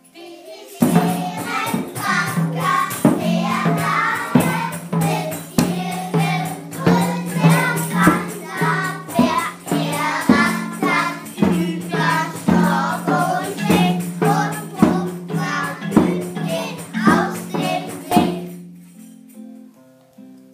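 Children singing together, accompanied by wooden xylophones and a drum keeping a steady beat of about two strokes a second over a held low note. The music stops about two seconds before the end and the last bar notes ring away.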